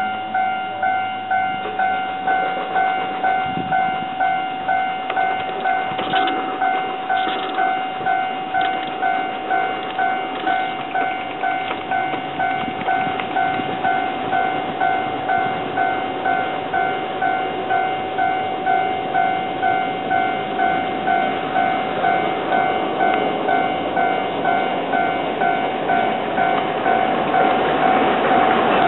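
Railway level-crossing warning bell ringing in a steady, even beat, a little faster than once a second. Near the end the running noise of an approaching TRA DR1000 diesel railcar grows louder beneath it.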